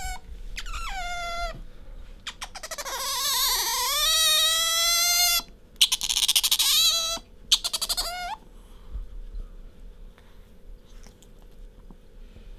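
Asian small-clawed otter squeaking: a run of high-pitched calls, the longest wavering in pitch for about three seconds, one sounding rapid and pulsed, then softer and more broken after about eight seconds.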